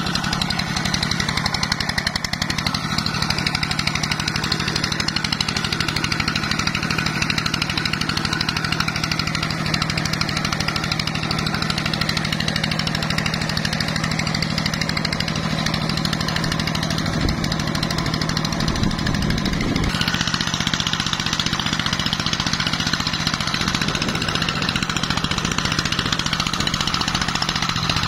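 Single-cylinder diesel engine of a công nông (two-wheel tractor pulling a loaded trailer) running steadily with a fast, even thump. A rougher low rumble joins it for a few seconds starting about seventeen seconds in.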